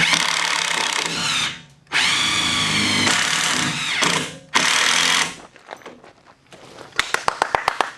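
Power drill driving screws into wood framing: three runs of the motor, each dropping in pitch as it slows, then a quick series of rapid clicks near the end.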